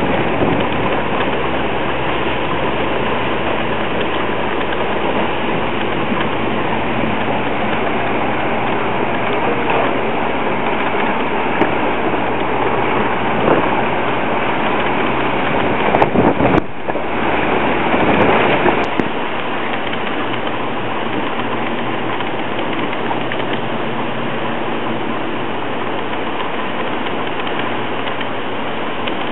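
Heavy hurricane rain falling steadily, a dense even hiss. A low rumble under it drops away about two-thirds of the way through.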